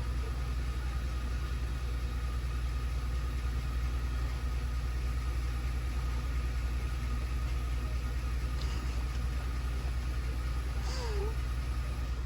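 Ford F150 pickup running, a steady low rumble heard from inside the cab.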